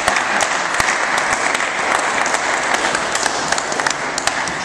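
Audience applauding with many individual claps, dying away near the end.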